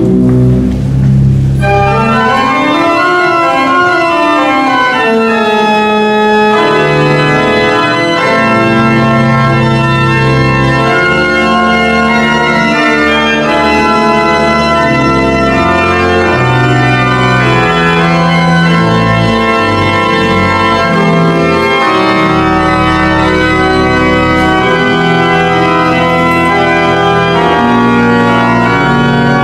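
Recently restored church pipe organ playing a piece in several voices: held chords over sustained bass notes, with moving lines above. The sound fills out in the upper range about a second and a half in.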